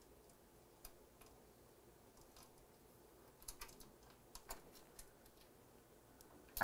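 Faint, scattered metallic clicks of a small open-end wrench working a housing screw on the underside of an espresso machine's metal panel, with a sharper click right at the end.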